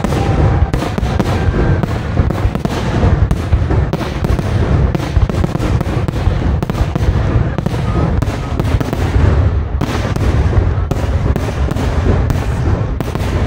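Large fireworks display: shells bursting in quick, overlapping succession, a dense run of bangs over a continuous low rumble.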